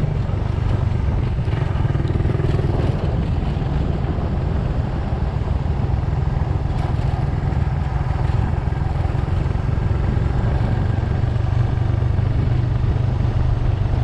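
An engine running steadily, a constant low drone with a rushing noise over it and no change in speed.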